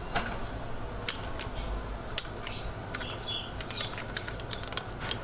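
Metal clicks and clinks as the cutting blade is handled and fitted into the head of a battery-powered hydraulic cutting tool. It is a few separate sharp knocks, the loudest about two seconds in.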